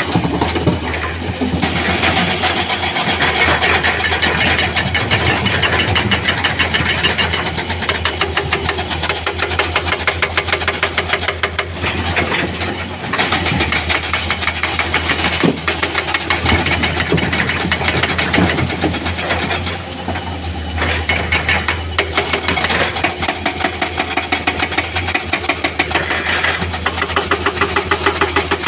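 Heavy earthmoving machinery's diesel engines running and working, with a fast pulsing beat, the level easing off and picking up again several times.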